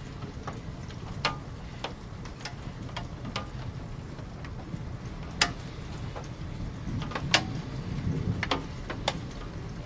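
Water drops falling and tapping on a hard surface in an irregular patter, a sharp tap every half second or so, over a steady low rumble.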